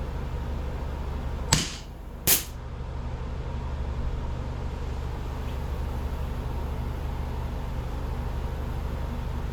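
Two sharp shots from a CO2-powered replica 1911 pistol, a little under a second apart, over a steady low hum.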